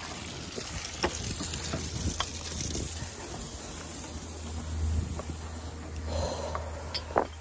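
Footsteps on a wooden dock and gangway, with a few sharp knocks, over a steady low rumble and hiss.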